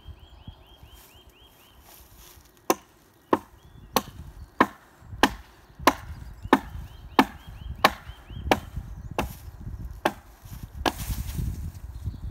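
Hand axe chopping into the branches of a fallen tree: about a dozen sharp strikes into wood at a steady pace of roughly one and a half a second, starting a few seconds in.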